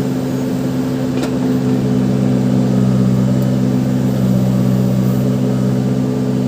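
Case 580 Super backhoe loader's diesel engine running steadily at an even pitch, with a faint click about a second in.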